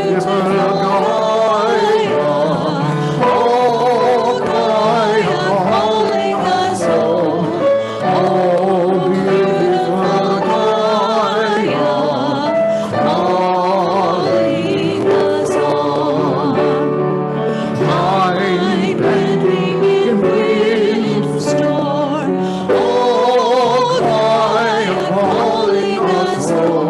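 A hymn sung by several voices with instrumental accompaniment, held notes carrying on steadily.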